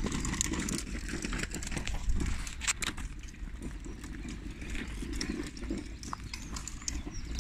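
Rumbling clatter of a child's hard plastic ride-on toy car rolling over brick paving, with many small knocks.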